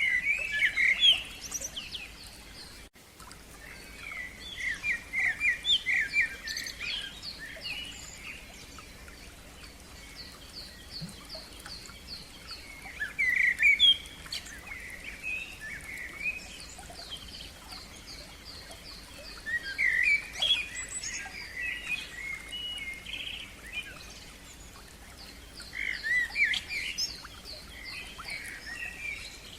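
Common nightingale singing phrases of rapid repeated whistled notes and trills, one phrase about every six seconds.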